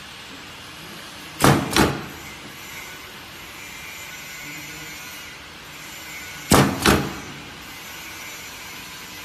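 Ultrasonic face-mask ear-loop welding machine firing its horn: two pairs of short, loud welding bursts, the two in each pair about a third of a second apart and the pairs about five seconds apart, over a steady background hiss.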